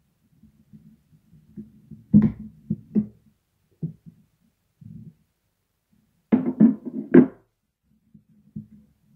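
An adjustable wrench clanks and knocks on the hub nut of a cooker hood fan motor's plastic blower wheel as the nut is worked loose, with the wheel and motor rattling as they are handled. A sharp clank comes about two seconds in, followed by a few lighter knocks and then a cluster of three loud knocks near the end.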